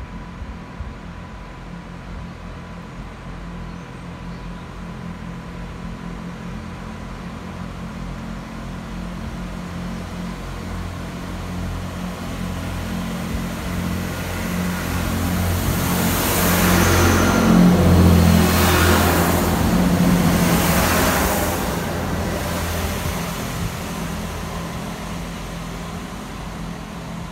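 GWR Networker Turbo diesel multiple unit approaching and passing close by. The hum of its diesel engines grows steadily louder, and wheel and rail noise swells in waves as the coaches pass about two-thirds of the way in. The sound then fades as the train runs away.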